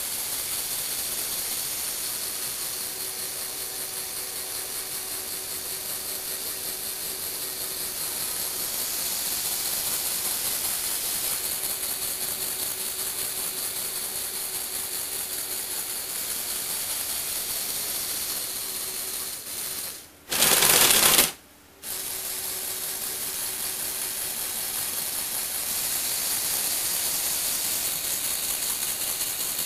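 Lego Technic electric motors and plastic gear trains whirring steadily with a fine ratchety clatter as they tilt the incline platform. About twenty seconds in, the sound drops out briefly around a short, louder burst of noise.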